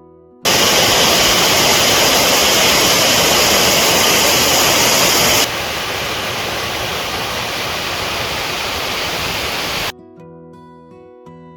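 Water of a mountain valley stream rushing loudly and steadily. It cuts in abruptly after plucked guitar music, drops suddenly in level about five seconds in, and stops at about ten seconds as the guitar music returns.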